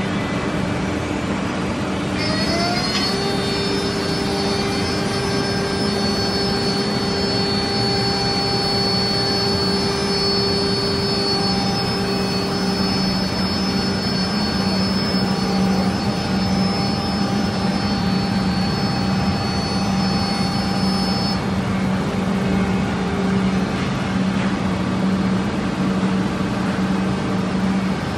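Woodmaster 5-axis CNC router running: its spindle whine rises in pitch about two seconds in, then holds steady over a low machine hum. The high whine drops out about twenty seconds in while the hum and machine noise continue.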